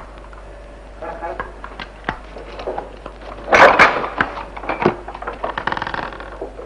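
Barred jail-cell door being unlocked and opened: scattered knocks and rattles at the lock, with one loud clattering clank about three and a half seconds in.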